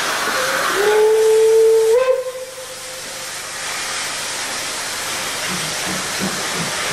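Steam locomotive whistle blown once for about a second and a half, its pitch stepping up just before it cuts off, over a steady hiss of steam. Near the end, the soft exhaust beats of a steam locomotive working slowly come in, about three a second.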